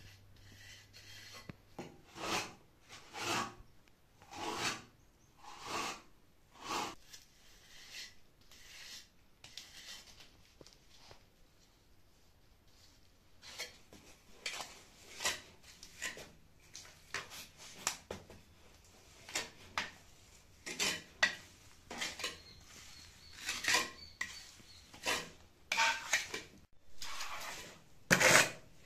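Mason's trowel spreading and scraping wet fibred earth-lime plaster (calfitice) onto a brick stove: a long run of short rasping strokes, about one a second. There is a quieter spell around the middle, and the loudest stroke comes near the end.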